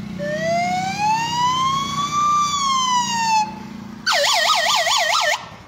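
A mouth-blown toy whistle imitating an ambulance siren. First comes one long tone that rises slowly and then falls. After a short break comes a fast warbling wail of about four swoops a second.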